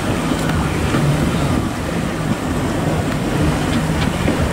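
Watercraft engine running with a low hum that comes and goes, over wind on the microphone and waves breaking.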